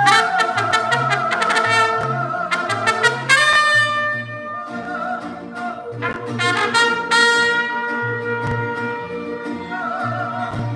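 Live mariachi band playing: a trumpet carries the melody in bright held notes over violin and a woman's singing, with a bass keeping a steady pulsing beat underneath.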